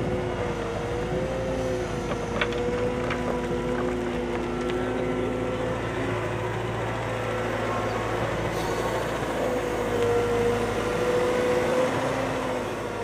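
CAT M313D wheeled excavator's diesel engine and hydraulics running steadily, with a few whining tones that waver slightly in pitch. A few light clicks come about two to three seconds in, and it grows a little louder near the end.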